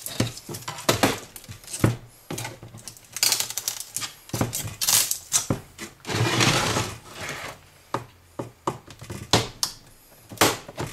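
Screwdriver prying at the sheet-metal frame of an LCD panel: irregular sharp metallic clicks and short scrapes, with a longer scrape a little past the middle.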